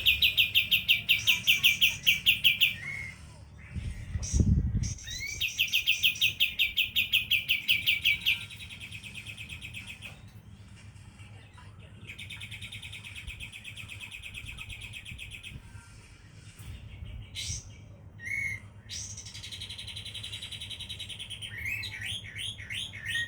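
Kapas tembak songbird singing its rapid-fire 'tembakan' trill: fast, evenly repeated high notes at about ten a second, in loud bursts of about three seconds that come back several times, the later ones softer. A short low thump sounds once, about four seconds in.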